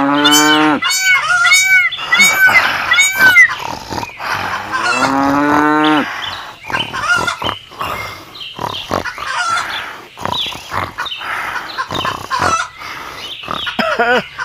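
Farmyard fowl calls, with goose-like honks and chicken calls. A quick run of repeated rising-and-falling calls comes first, then one longer drawn-out call about five seconds in, then many short clucks and clicks.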